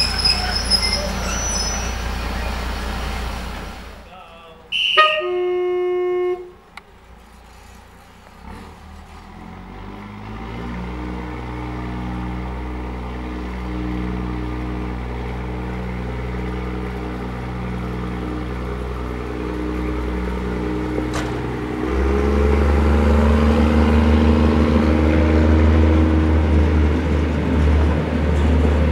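Malaxa Class 78 diesel railcar sounding one horn blast of about a second and a half as it approaches. Its diesel engine then runs steadily and grows louder, with a deeper, louder rumble from about two thirds of the way in as it draws alongside.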